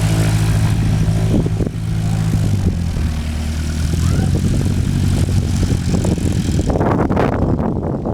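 Slingsby light aircraft's piston engine and propeller running steadily, with a rougher rushing noise from about seven seconds in.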